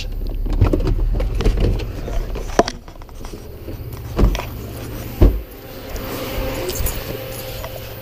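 Pickup truck's engine rumbling as it pulls onto the grass shoulder, falling away about two and a half seconds in. Then light metallic rattling and three sharp knocks, a second or so apart.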